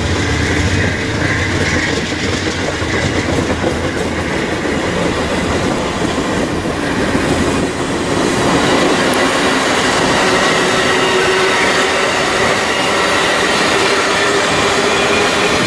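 Amtrak stainless-steel passenger cars rolling past on the rails, a steady loud running noise. A thin, steady wheel squeal joins in about ten seconds in.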